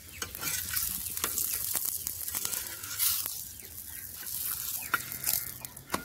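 A paratha frying on an iron tawa over a wood fire: oil sizzling with a steady hiss while a metal spoon scrapes and presses the bread against the griddle in many short strokes and clicks.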